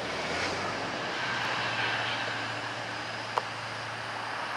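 The last cars of a long mixed freight train rolling away on the track, a steady rumble and hiss of wheels on rail with a low hum underneath. A single sharp click sounds about three and a half seconds in.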